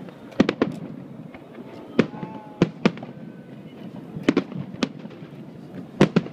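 Aerial firework shells bursting: about ten sharp bangs in irregular clusters, some in quick pairs and triples, over a steady background murmur with faint voices.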